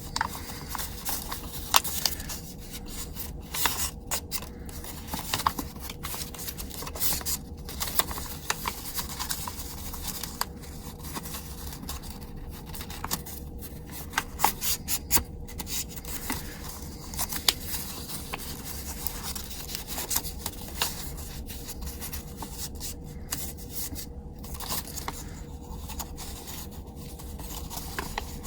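Paper being folded and creased by hand, with irregular rustling, crinkling and scraping strokes, over a faint steady hum.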